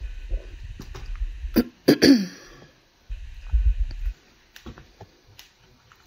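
Footsteps and camera-handling rumble while walking across a littered floor, with a short throat-clearing sound about two seconds in, the loudest moment, and scattered small clicks after.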